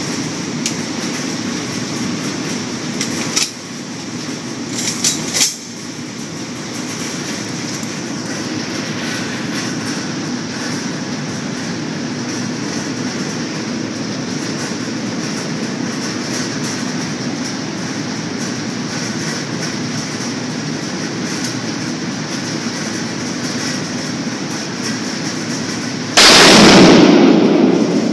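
Steady noisy background with a few clicks and knocks in the first six seconds as the rifle is handled on its bipod. Near the end comes a single very loud shot from a Barrett .50 BMG rifle, its blast ringing on for about a second and a half.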